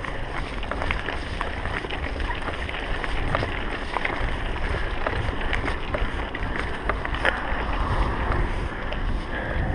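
Mountain bike riding a leaf-strewn woodland singletrack: wind rumbling on the action camera's microphone, with frequent sharp clicks and rattles from the bike and tyres over the rough ground.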